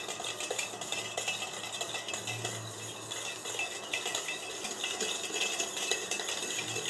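Wire whisk beating a runny sugar-and-oil mixture in a stainless steel bowl: a steady run of quick light clinks and scrapes of the wires against the metal.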